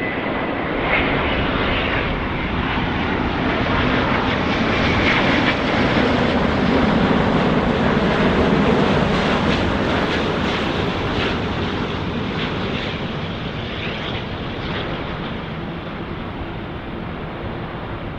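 Airbus A350-900 jet airliner with Rolls-Royce Trent XWB engines passing on final approach to land, gear down. The jet engine and airflow noise builds to a peak around the middle and then slowly fades, with a thin whine near the start.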